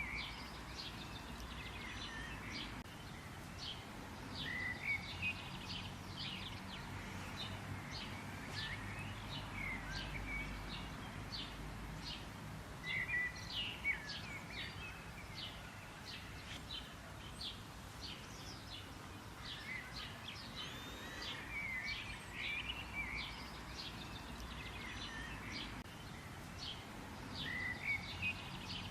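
Several songbirds chirping and twittering, with many quick, high chirps and short trills spread through the whole stretch over a faint, steady low background rumble.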